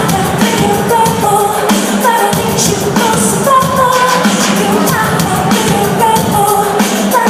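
Loud live band performance: a woman singing a repeating melodic line over a full band with heavy, frequent drum hits.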